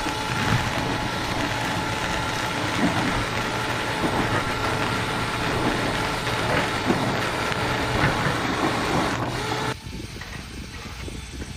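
A power drill spinning a rotary dryer-vent cleaning brush on rods inside the duct, a steady loud whirring and scraping. It cuts off abruptly about ten seconds in, leaving a quieter background hum.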